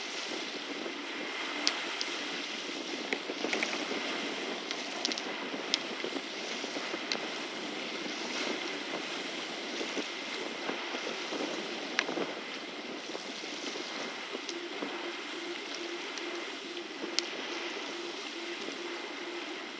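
Steady wash of water and wind noise, with scattered sharp clicks throughout and a faint pulsing low hum in the second half.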